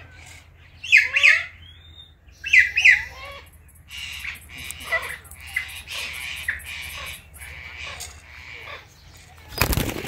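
Indian ringneck and Alexandrine parrots calling: two loud pairs of sharp squawks about one and three seconds in, then softer chattering. A brief loud rustling burst comes near the end.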